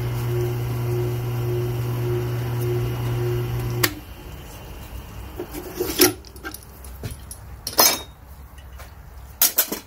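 Tormek sharpening machine's electric motor humming steadily, then switched off with a click a little under four seconds in. After it stops, a few sharp knocks and clatters of tools being handled and set down.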